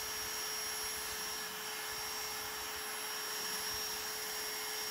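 MPCNC compact router cutting a circular hole through 1/4-inch plywood with a shop vacuum nozzle held at the bit: a steady rush of air and motor noise with a constant high whine.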